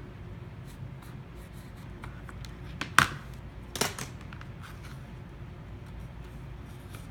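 Plastic guitar pick being run around the edge of an iPhone 6 to pry the screen away from the frame, with faint scraping and small clicks. There is a sharp click about three seconds in and a smaller one just before four seconds.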